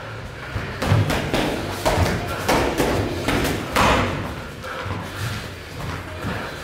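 Boxing gloves thudding as punches land during sparring: a run of irregular muffled hits, thickest in the first four seconds and lighter towards the end.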